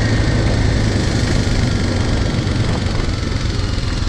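Kawasaki dirt bike engine running steadily.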